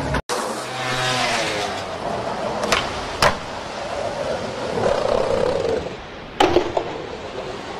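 Skateboard sounds over a steady hiss of wheels rolling on hard ground: sharp clacks of the board popping and landing about three seconds in and again near six and a half seconds, with a board scraping along a concrete ledge in between.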